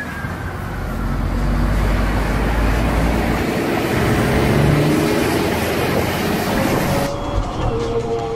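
Road traffic noise, with a heavy low rumble for the first few seconds. About seven seconds in it cuts abruptly to the duller, steady road noise of a car driving on a highway.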